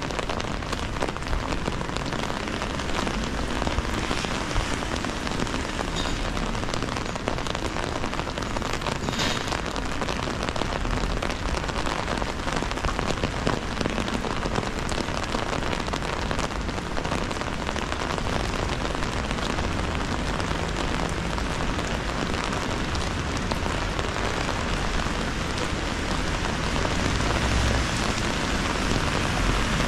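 Steady rain, a dense patter of drops, with a low rumble underneath that grows near the end.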